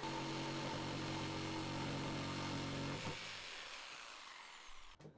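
Corded jigsaw cutting a slot through a thick wooden board, its motor running with a steady buzz, then stopping about three seconds in and winding down.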